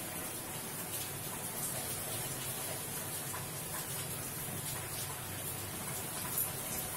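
Hands kneading flour and water into a soft dough in a steel bowl: faint rubbing and squishing with a few light taps, over a steady hiss.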